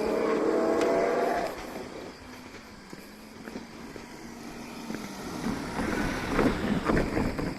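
Japanese level-crossing warning bell ringing, cutting off about a second and a half in. Later a road vehicle rolls over the crossing, with a run of irregular knocks near the end.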